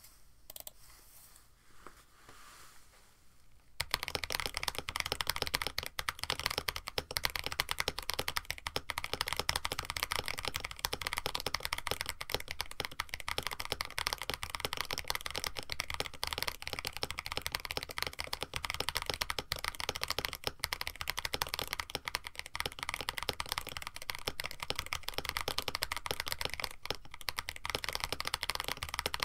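Continuous fast typing on a KBD67 Lite mechanical keyboard with an FR4 plate and Moyu.Studios switches: a dense, steady run of keystrokes starts about four seconds in, after a few seconds of near-quiet.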